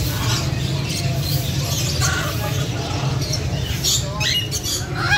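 Caged birds chirping and squawking over a steady low hum, with a flurry of sharp calls near the end.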